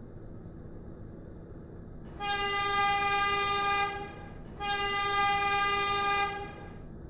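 A horn sounding two long blasts of one steady pitch, each about two seconds, with a short gap between them.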